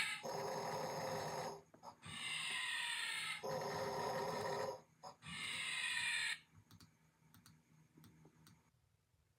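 Snoring: four loud snores of a second or so each, one after another with short gaps, each sliding down in pitch. Faint clicks follow.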